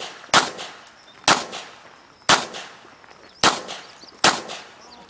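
Five handgun shots fired at an uneven pace, roughly a second apart, each a sharp report with a short echoing tail.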